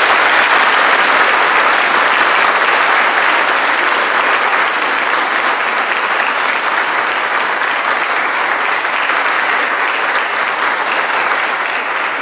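Audience applauding, many people clapping steadily, easing a little toward the end.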